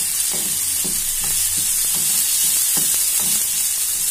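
Ground masala paste sizzling in oil in a kadai while being sautéed, with a steel spoon stirring and scraping against the pan about two to three strokes a second over a steady frying hiss.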